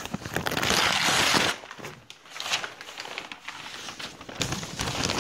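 Ad paper being pulled off ironed black 6-mil Visqueen polyethylene sheeting, the paper stuck to the heat-sealed seam: rustling and crinkling of paper and plastic, with a long burst at the start, scattered crackles in the middle and another burst near the end.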